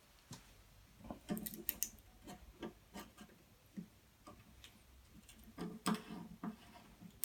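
Irregular light clicks, taps and rubbing of hand work fitting a race fuel cap into a motorcycle's fuel tank, with a louder cluster of knocks about six seconds in.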